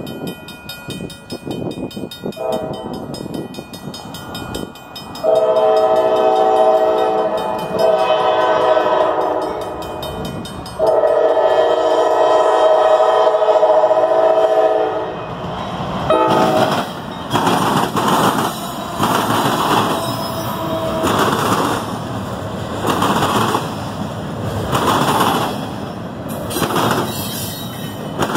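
Norfolk Southern freight locomotive sounding its air horn for the crossing: two long blasts of about five seconds each, starting about five seconds in. Then the train passes close by, the double-stack container cars rolling past with a rhythmic clatter of wheels over the rails.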